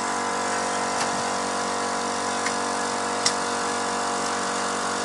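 Steady hum of running machinery, a drone with many even overtones that holds a constant level, with a few faint clicks over it.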